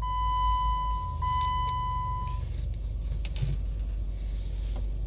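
2012 Jeep Wrangler's 3.6 V6 engine running at idle just after start-up. A steady electronic beep tone sounds over it and stops about two and a half seconds in.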